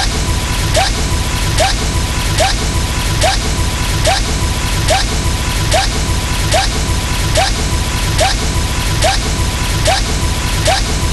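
A looped sound effect: a short hit with a quick upward chirp, repeating evenly about every 0.8 s over a steady low rumble and a faint constant high tone.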